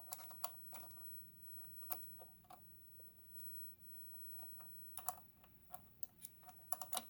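Faint clicks and taps of a metal presser foot being handled and pushed against a Kenmore sewing machine's presser bar, which it does not fit. A few clicks in the first second, a quiet stretch, then a quicker run of clicks near the end.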